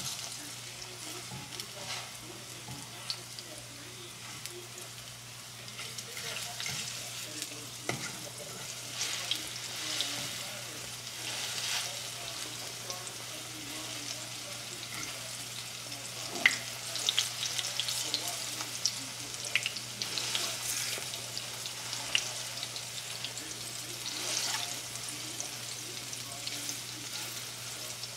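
Food sizzling in a nonstick frying pan over a gas burner, with a fork scraping and tapping the pan now and then.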